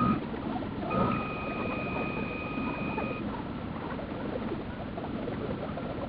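Wind and water noise on the microphone of a small camera aboard a model barge under tow, sped up to four times speed. About a second in, a steady high tone comes in and holds for about two seconds.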